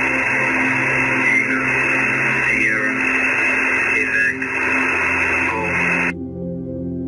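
Loud radio-style static hiss with a steady hum underneath and a few short warbling chirps, like a noisy two-way radio channel. It cuts off suddenly about six seconds in and gives way to soft ambient music with held tones.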